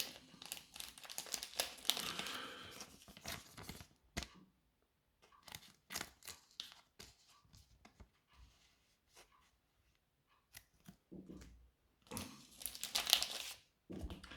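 Plastic trading-card packaging crinkling and rustling as it is handled: a long crinkly stretch over the first few seconds, scattered small rustles and clicks, and another loud burst of crinkling about twelve seconds in.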